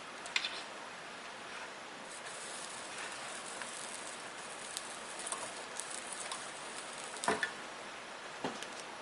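Light bench work on small parts: scattered small clicks and taps over a steady hiss, with a sharp click just after the start and two louder knocks about seven and eight and a half seconds in.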